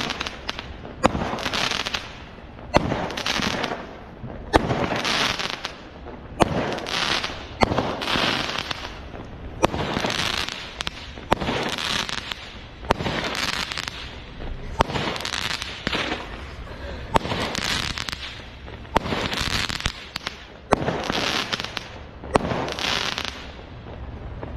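A firework barrage firing shots in steady succession, about one every two seconds: each a sharp bang followed by about a second of hissing noise as the shell goes up and bursts.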